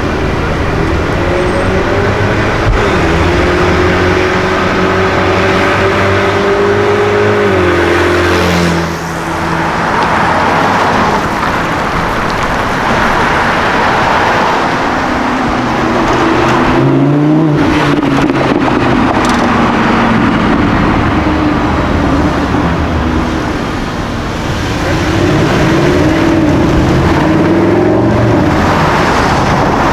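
Sports car engines accelerating: the engine note climbs in steps for several seconds, like upshifts under hard throttle, then falls away. About 17 seconds in the pitch rises and falls again, and near the end an engine revs up and down several times.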